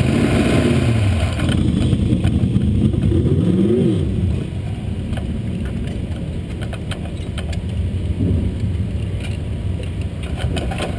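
Dirt-track race car's engine idling with throttle blips: the revs rise and fall just after the start and again near four seconds in. After that the engine settles into a lower, quieter rumble.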